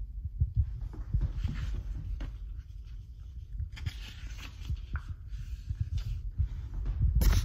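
Footsteps with handling noise from a hand-held phone: uneven dull thumps and knocks, with clothing rustle, and a louder rustle near the end.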